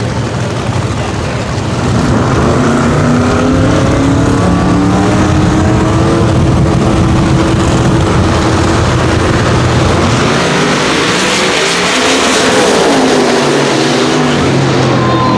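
Two no-prep drag race cars running at full throttle. The engine noise jumps up about two seconds in and climbs steadily in pitch, swells into a loud rush past the microphone, then drops in pitch near the end.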